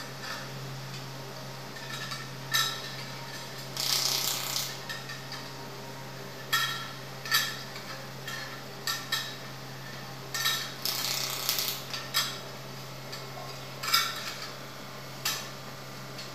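YAG laser welding machine running with a steady low hum, broken by about a dozen irregular sharp metallic clicks and clinks that ring briefly, two of them longer rattling clusters.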